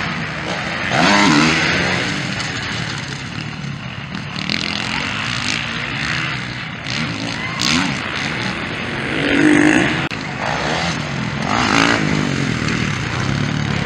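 Motocross dirt bike engines revving, their pitch rising and falling several times as the bikes ride the track.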